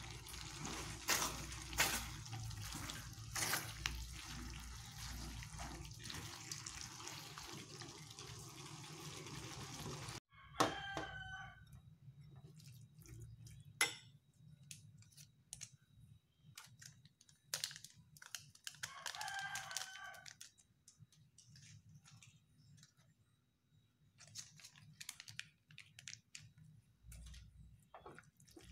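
Beef and broccoli stir-fry sizzling in a wok as a spatula stirs it, with a few sharp knocks of the spatula against the pan. After a sudden cut there are soft clinks of a spoon mixing raw sliced meat in a bowl, while a rooster crows twice in the background.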